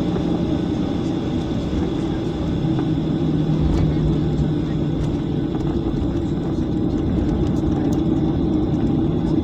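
Jet airliner cabin noise while taxiing after landing: a steady hum of the engines at low power over a low rumble, with a faint steady high whine.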